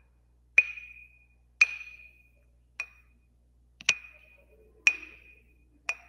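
Wooden spoon tapping an empty glass tumbler six times, about once a second, each tap a light clink with a short ring.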